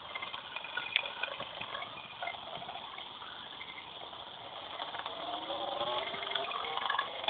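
Muffled, hiss-heavy music on a Nintendo DSi Flipnote's sound track, recorded through the console's microphone. It is a noisy haze with faint tones that rise in pitch and grow louder over the last couple of seconds, building into the song.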